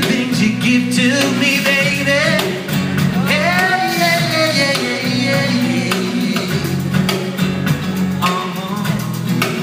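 Live rock band playing, with guitar, bass and drums, while a singer holds long notes that slide up and down without clear words.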